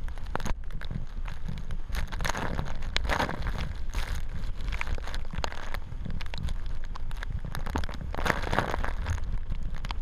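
Typhoon eyewall wind buffeting the microphone with a constant low rumble, while driving rain and spray crackle against the camera and waves slosh against the concrete seawall. The gusts surge about two to four seconds in and again near the end.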